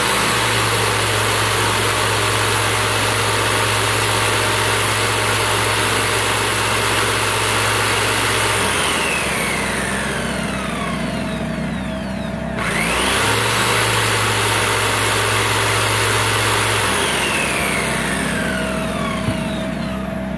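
Black & Decker corded jigsaw running off a small Harbor Freight Tailgator generator, with the generator's engine running under the load. The saw motor stops briefly about two-thirds of the way through, then winds up and runs again.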